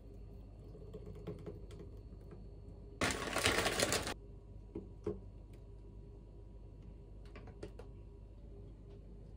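A plastic bag of frozen berries crinkles for about a second, then a few light clicks follow as frozen raspberries are dropped onto a thick smoothie in a glass bowl.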